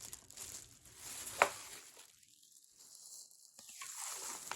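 Faint rustling as bleach packets and mixing things are handled, with one sharp click about a second and a half in and a short near-silent stretch after it.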